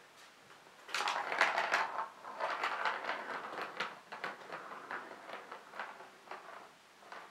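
A plastic ball rattling and rolling around the Catit Senses Circuit's plastic track as a cat bats at it with its paw. A quick run of clicks and knocks starts about a second in, is busiest over the next few seconds, then thins out.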